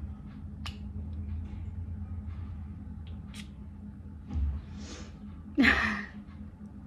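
A small Miniso Blissful Bouquet perfume bottle handled with a few light clicks, then its spray pump pressed once with a short hiss about four and a half seconds in. About a second later comes a loud breath with a brief voiced onset, the loudest sound.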